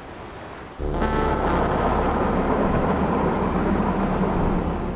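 Documentary background music: a dark swell with a deep rumble comes in suddenly about a second in and holds, easing off near the end.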